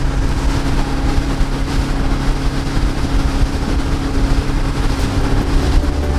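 Speedboat engine running at speed, a steady drone under the rush of water thrown up behind the boat.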